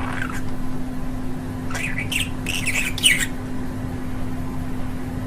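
Budgerigar chirping: one short chirp at the start, then a quick run of several squawky chirps about two to three seconds in, over a steady low hum.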